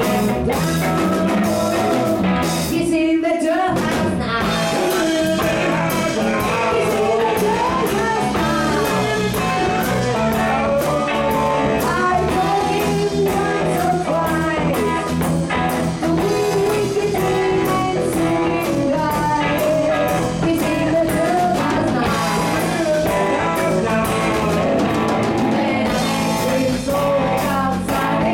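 Small band playing live in a room, electric guitars and drum kit, with a man singing into a microphone.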